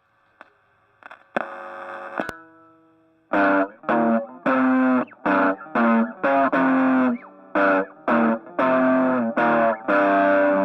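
Distorted electric guitar playing through effects: a single chord rings for about a second, then from about three seconds in comes a run of short, choppy chord stabs, ending on a held chord.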